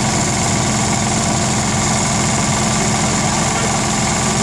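Large vertical multi-cylinder stationary engine running steadily with an even beat.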